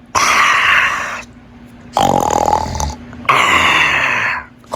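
Exaggerated, comic snoring performed by a person's voice: three loud snores about a second long each, with short pauses between them.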